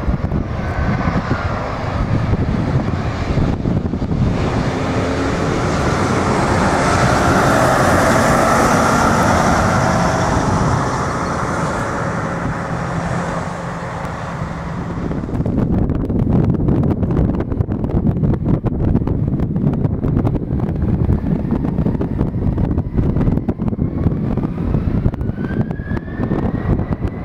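Jet airliner passing close by: its engine noise swells to a loud roar with a whine in it and fades away over about ten seconds. Gusting wind buffets the microphone afterwards, and near the end a thin engine whine rises steadily in pitch as another jet's engines spool up.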